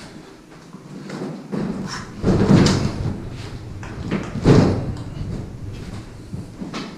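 Side-by-side refrigerator being worked through a doorway with its doors open: light knocks and two longer scuffing surges, about two and a half and four and a half seconds in, as the fridge and its doors bump and rub against the door frame.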